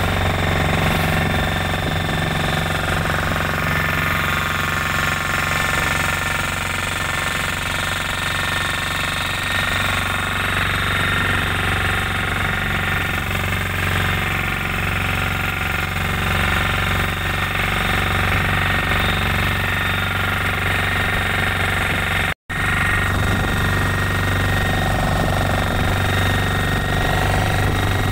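Motorboat engine running steadily under way, a constant low hum with no change in speed. It cuts out for an instant about two-thirds through.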